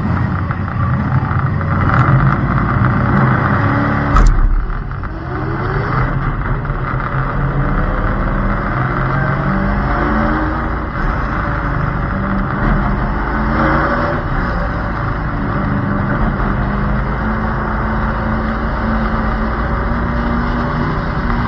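Stock car engine running hard on an oval, heard from the car's roof, its revs rising and falling through the laps. A sharp knock about four seconds in, after which the engine note climbs.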